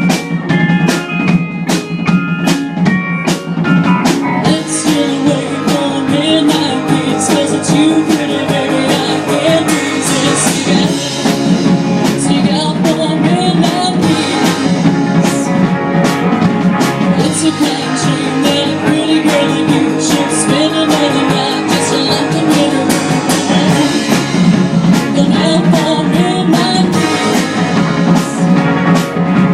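Live rock-and-roll band playing an original song: electric guitar and drum kit with frequent cymbal hits, and a wavering melody line that comes in about four seconds in.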